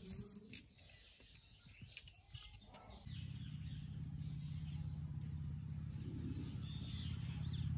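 Light clicks and scrapes of a knife blade against the chulha's stones and embers, with birds chirping. About three seconds in, a steady low motor drone starts and slowly grows louder, becoming the loudest sound.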